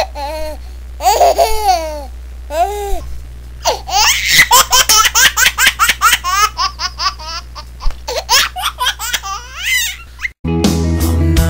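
Hearty laughter: long rising and falling whoops, then a run of fast, repeated bursts of laughing over a steady low hum. Music cuts in near the end.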